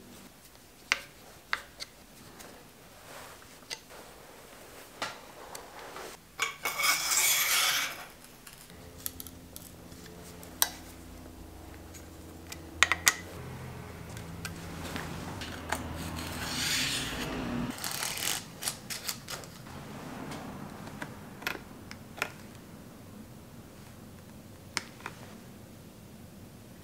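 Metal hand tools clicking and clinking on bicycle stem and headset parts, with scattered single clicks and two longer bouts of noisy rubbing, about seven seconds in and again past the middle.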